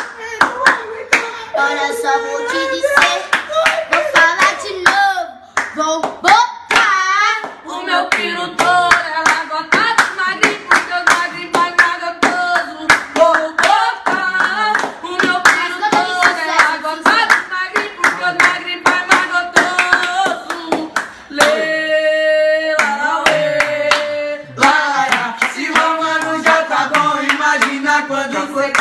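Funk MCs singing a cappella over a fast rhythm beaten out by hands, with a long held note about 21 seconds in while the beat briefly thins out.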